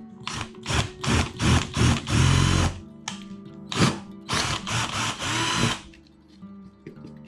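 Cordless drill boring holes in a machine block, run in a string of short trigger bursts with two longer runs, then stopping about six seconds in.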